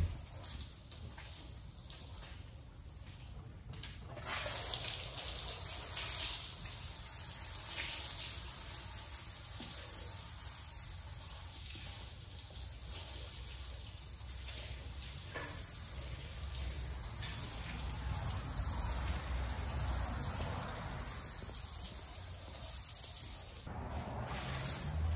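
Water sprinkled from a watering can onto wet area rugs, a steady splashing hiss that starts about four seconds in and breaks off briefly near the end.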